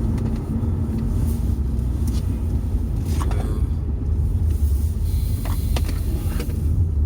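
Steady low rumble of a car driving, road and engine noise heard inside the cabin, with a few faint ticks.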